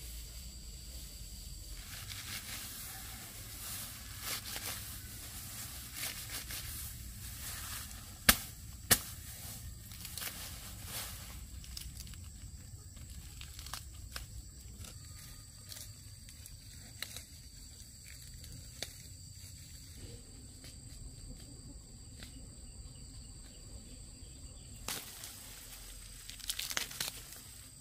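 Leafy plant stalks rustling, crackling and tearing as they are handled, with two sharp snaps about eight and nine seconds in.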